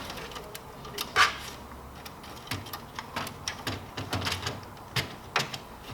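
Clicks and light taps of the plastic panels and wiring of a Kyocera Ecosys M3550idn laser printer being handled during reassembly: one sharper click about a second in, then a run of small clicks and knocks.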